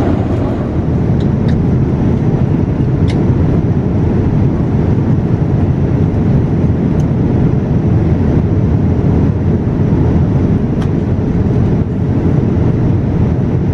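Steady low rumble of a Boeing 787-9 airliner cabin in cruise flight, the airflow and engine noise heard from a passenger seat. A few faint clicks sound over it.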